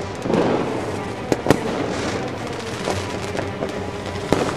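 Fireworks bursting and crackling, with two pairs of sharp bangs, one about a second and a half in and one near the end, over faint background music.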